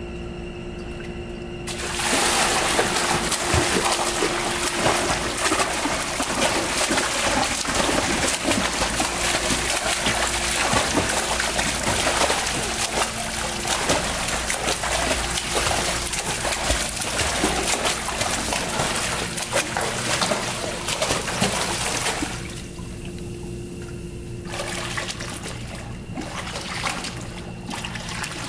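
Splashing of a child swimming freestyle, his kicks and arm strokes churning the pool water continuously. It starts about two seconds in, eases off for a couple of seconds near the end, then returns more lightly. A steady low hum runs underneath.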